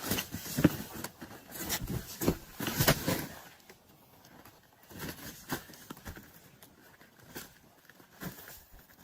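Irregular knocks, taps and scraping from handling and fixing asphalt roof shingles. They are busiest in the first three seconds, then sparser.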